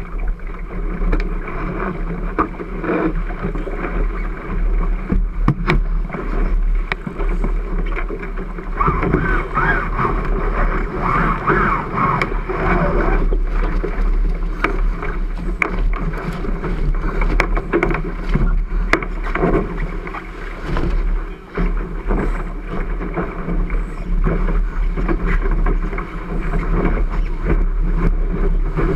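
A 12 ft Cherub skiff planing downwind: a steady rush of water along the hull and wind buffeting the deck-mounted camera, muffled and low-heavy, with frequent sharp knocks from the hull and rigging.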